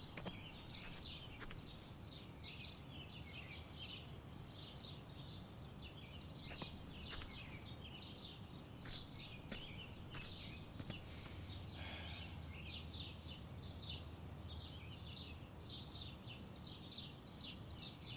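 Small birds chirping continually in quick repeated calls over a low, steady outdoor background hum. A low rumble swells briefly about two-thirds of the way through.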